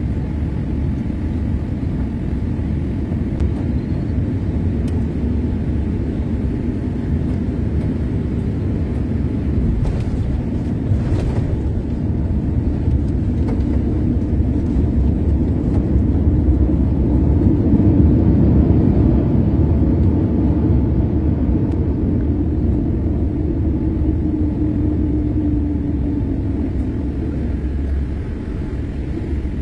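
Airliner cabin noise: a steady low rumble of engines and airflow, swelling a little about halfway through and easing slightly near the end.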